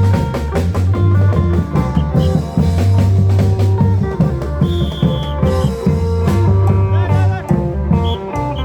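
Isan klong yao long-drum band playing lively procession music: rapid drum strikes over a steady bass, with a melody played on top.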